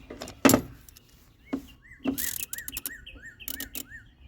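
Hand tools clanking, with one loud metal knock about half a second in and several lighter clicks after it. Over this a bird chirps a quick run of about seven short rising-and-falling notes, roughly three a second.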